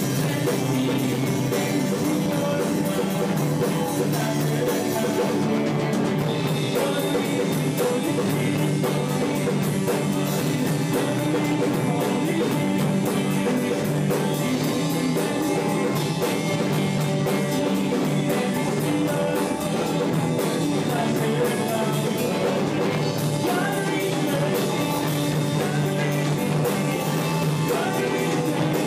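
Rock band playing live in a room: two electric guitars and an electric bass over a drum kit, with a singer at the microphone.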